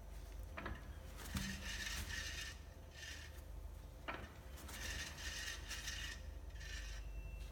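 Strange mechanical noise from a Volvo XC90's Aisin TF-80 automatic transmission: about five short bursts of hissing, scraping noise, each under a second, with a few sharp clicks, over a steady low hum.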